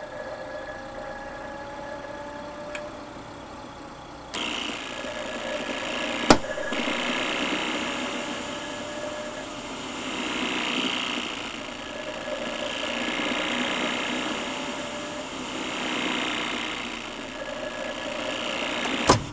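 Magnavox top-loading laserdisc player spinning its disc with a mechanical whir that swells and fades every two to three seconds as the player fails to hold the disc speed steady. It gets louder about four seconds in, with a sharp click a couple of seconds later and another near the end.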